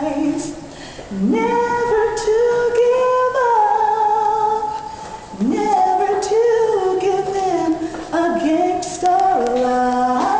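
A woman singing gospel melismas on long held notes, sliding up into new phrases about a second in, midway, and again near the end.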